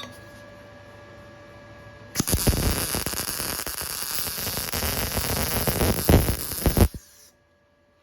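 Electric arc welding a bead: a loud, steady crackling hiss that starts about two seconds in and cuts off abruptly near the end as the arc is broken.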